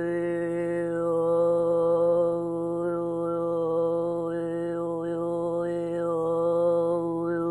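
A woman's voice toning one long, steady note without a break, in the manner of a mantra-like chant. The vowel shape shifts several times as she sings.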